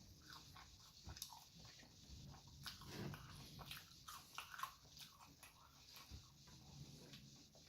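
A person chewing food, with quiet, irregular wet smacks and clicks of the mouth.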